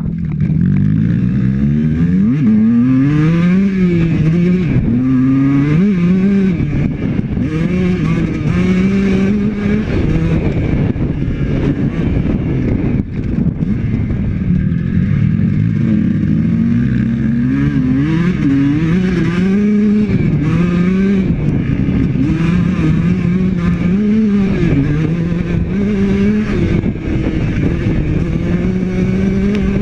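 Honda CR125 two-stroke dirt bike engine being ridden hard, its note climbing and dropping back again and again as the throttle is opened and closed.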